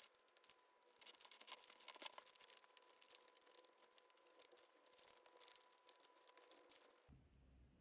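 Faint rustling and crinkling of paper being handled and creased while folding, made of many small irregular ticks. It stops a little before the end.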